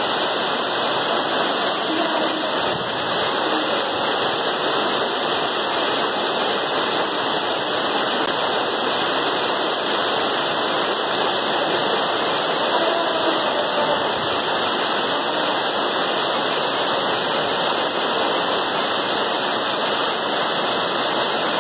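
Waterfall: falling water rushing in a steady, unchanging wash of noise.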